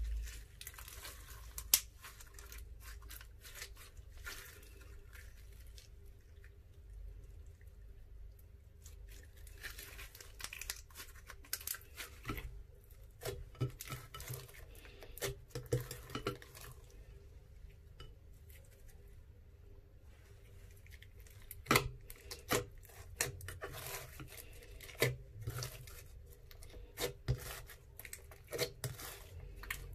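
Sticky slime being squeezed, folded and pressed by hand into a glass baking dish: irregular sticky clicks, pops and crackles as it pulls apart, with taps of slime and fingers against the glass. The clicks come in clusters, thickest in the middle and the last third.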